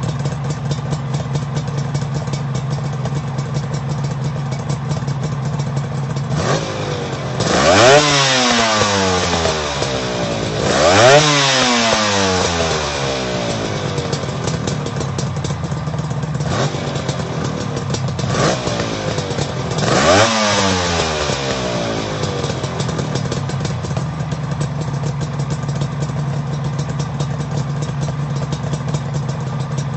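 Suzuki GT750's three-cylinder two-stroke engine idling steadily, blipped by the throttle three times, each rev rising sharply and falling back to idle, with a couple of smaller blips between the second and third.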